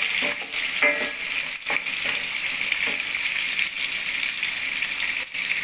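Sliced onion, garlic, ginger and chilies sizzling steadily in hot oil in a stainless steel pot, with a wooden spoon stirring and knocking against the pot a few times in the first couple of seconds.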